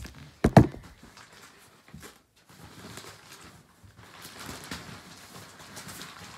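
Two loud knocks close to the microphone about half a second in, then faint, uneven crinkling and rustling.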